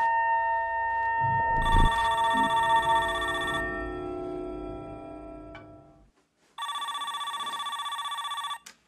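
Mobile phone ringing with a trilling electronic ringtone for about two seconds; it starts suddenly after a short gap and cuts off near the end. Before it, several held musical tones fade away.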